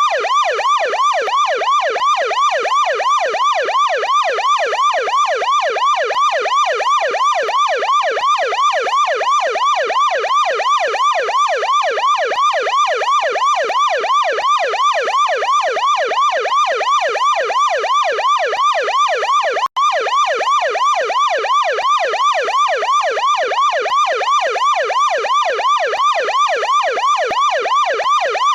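American police car siren on its deep-toned yelp setting: a fast electronic wail sweeping up and down in pitch, repeating several times a second. It cuts out for an instant about twenty seconds in.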